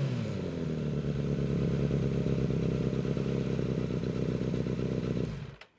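Suzuki motorcycle engine heard through an aftermarket carbon-fibre slip-on muffler, its revs falling back to a steady idle, then switched off about five seconds in.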